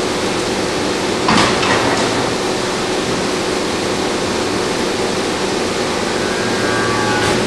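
Y83-300 hydraulic briquetting press running: a steady machine hum under a loud, even noise. There are a couple of knocks about a second and a half in, and a knock near the end that follows a brief higher whine. This repeats at a regular interval as the press cycles.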